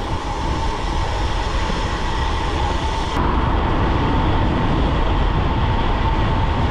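Wind rushing over the microphone of a handlebar-mounted camera, with tyre and road noise from a road bike rolling along at speed. A thin steady whine runs underneath.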